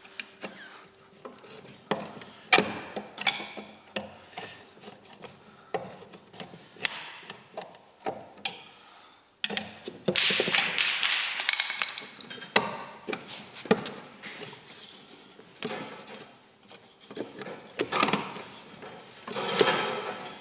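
Hand-tool work on a bus headlight's fittings: irregular knocks, clicks and rubbing, with a longer rasping stretch about halfway through and another near the end.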